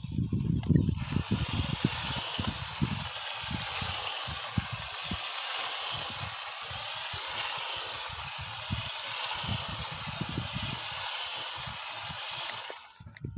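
Homemade RC car's twin 775 brushed DC motors running under power, a steady hissing drive noise over irregular low thumps, cutting off suddenly near the end.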